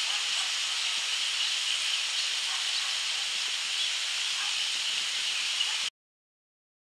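A steady high hiss with a few faint short notes in it, which cuts off suddenly about six seconds in.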